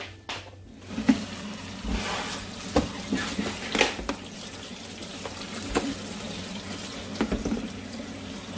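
Cold tap water running onto boiled rice noodles in a plastic colander in a stainless steel sink, rinsing the starch off them. The water starts about a second in, with a few knocks and clatters as the colander is moved.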